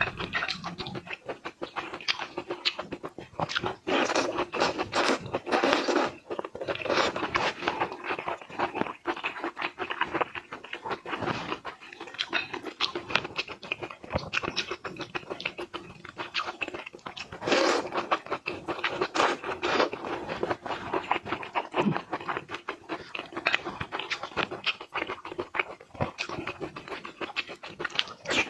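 Close-miked eating sounds: seafood being chewed and crunched with wet smacking, a dense run of sharp clicks and crackles that goes on without a break, with louder crunches around a third of the way in and again a little past halfway.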